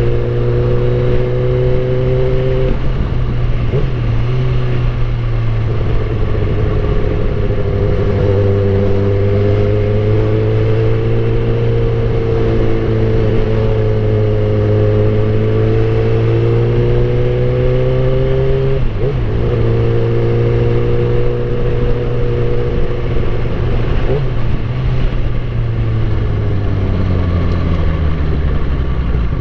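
Suzuki GSX-R1000 K8's inline-four engine running at steady riding revs, its pitch rising and falling gently. The sound breaks briefly about two-thirds of the way through, and the revs fall away near the end.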